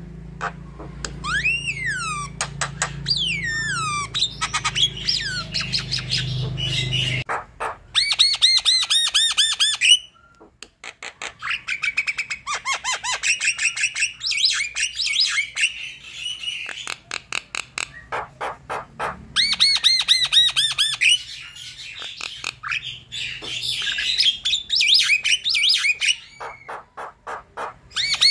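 Javan myna singing a long, varied chattering song: rapid runs of clicks and rattles, harsh squawks and gliding whistles, in bouts with brief pauses.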